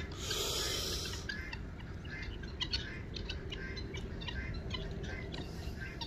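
Birds chirping in short, irregular calls over a low rumble, with a brief rushing hiss lasting about a second near the start.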